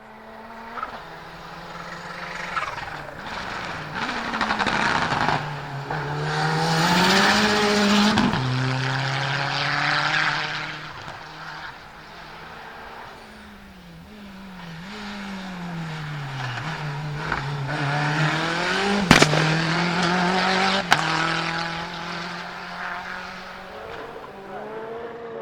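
Turbocharged four-cylinder hillclimb race car accelerating hard up the course, engine pitch climbing and dropping at each gear change as it comes close and moves away twice. Two sharp exhaust bangs go off under two seconds apart, about three-quarters of the way through.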